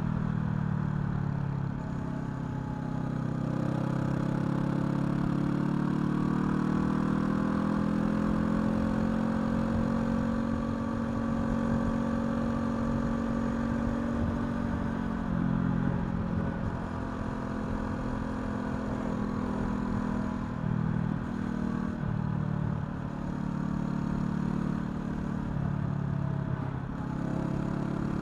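Honda CL500's parallel-twin engine under way on the road, its note climbing slowly for several seconds, then dropping and picking up again several times in the second half.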